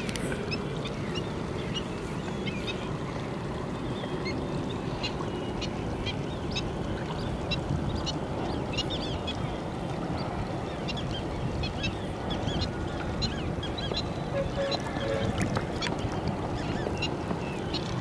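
Waterbirds calling: many short, high calls scattered throughout, over a steady low rush of water and wind at the shore.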